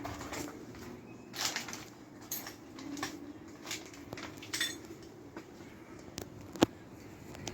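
Irregular light clinks and knocks of hard objects, about a dozen, with one sharp click near the end that is the loudest.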